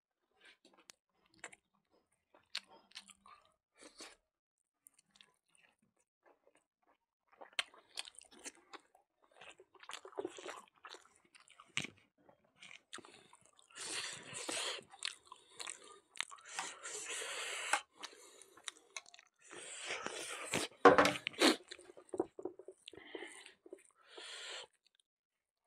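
A person eating by hand: faint small clicks and mouth sounds at first, then chewing and crunching that grows denser and louder from about a third of the way in.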